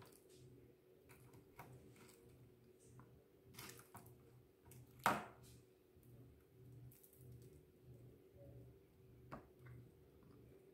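Faint clicks and rustling of fingers handling and pulling apart fried chicken wing pieces over a plate, with one much sharper click about five seconds in.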